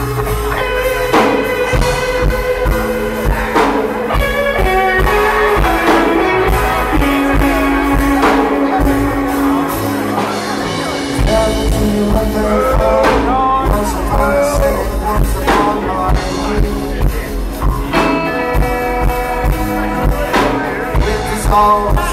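Live rock band playing: electric guitar, bass guitar and drum kit, with a singer's voice over them. The low bass drops away for a moment about ten seconds in, then comes back.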